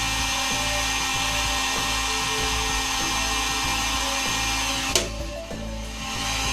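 Heat gun blowing hot air onto a CPU's pin side, a steady hiss with a fan whine, softening the solder so the gold pins loosen. About five seconds in there is a single sharp click, and the blowing noise briefly drops.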